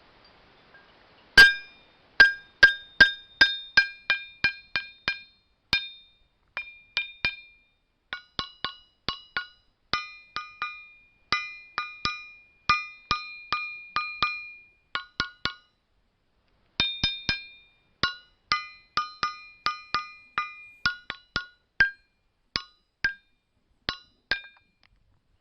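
Ringing rocks struck in quick succession, about four strikes a second, each giving a clear bell-like ring at one of several pitches, so they are played like a tune. The strikes start about a second and a half in, stop briefly near the middle, and go on until near the end.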